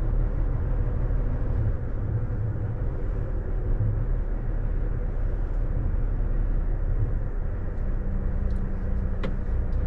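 A truck's diesel engine and road noise heard from inside the cab as it drives: a steady low rumble, with a steady hum joining about eight seconds in.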